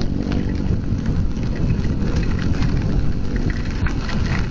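Motorcycle engine running steadily while riding through heavy rain, with rain spattering on the camera and raincoat over the steady noise of the wet road.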